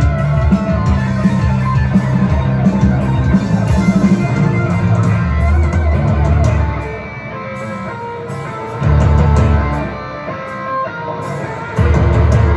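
Live heavy rock band playing an instrumental passage on electric guitars, bass and drums. The full band plays loudly, drops to a quieter part about six and a half seconds in, then comes back with two short loud surges near the end.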